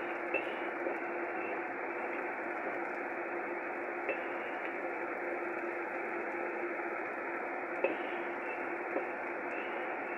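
Ground chili spice paste sizzling in oil in a black wok as it is stirred with a spatula: a steady hiss, with a few light clicks of the spatula against the pan.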